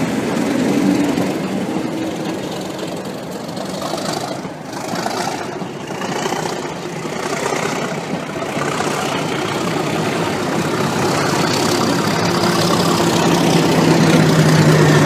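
Network Rail test train coaches rolling past on the rails, then the trailing Class 37 diesel locomotive's English Electric V12 engine running as it goes by, growing louder toward the end.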